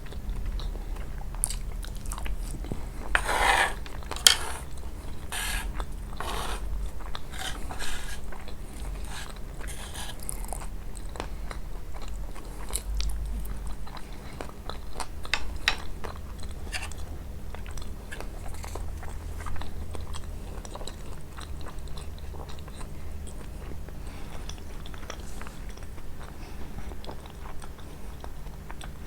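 Close-miked biting and chewing of coarse Nabulsi kunafa: a run of crisp crunches in the first ten seconds or so, then sparser, softer chewing clicks.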